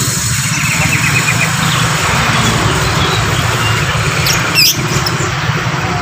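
An engine idling steadily, with short bird calls over it: a quick high trill about half a second in, and a sharp call that sweeps up and down near the end.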